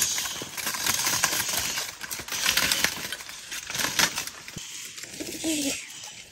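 Dry leaf litter and twigs crunching and rustling in quick, irregular crackles, as feet and animals move through the dead leaves.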